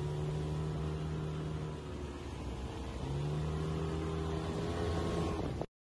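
Dinghy's outboard motor running steadily, its note dropping a little about two seconds in and rising back about a second later. It cuts off abruptly just before the end.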